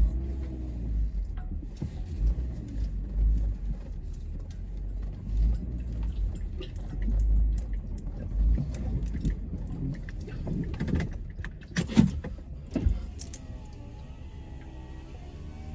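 Car driving, heard from inside the cabin: a low, uneven road rumble with rattles and clicks, and a few louder knocks about twelve seconds in.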